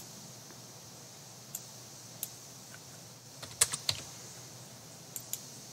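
Faint, scattered computer keyboard keystrokes: a few single taps, then a quick run of four or five keys about three and a half seconds in, and two more taps near the end.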